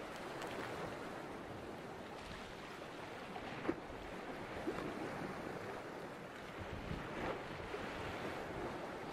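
Choppy harbour sea washing and lapping, with wind on the microphone and a few short, sharp taps.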